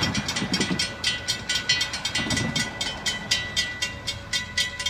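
Railroad grade-crossing warning bell ringing rapidly, about five strikes a second, as the crossing activates for an approaching train. A car's engine passes briefly near the start.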